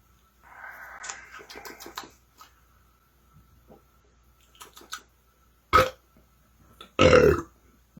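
A man belching from chugged soda: a short sharp burp about six seconds in, then a louder, deeper belch about a second later. Before that, a soft hiss with clicks for about a second and a half.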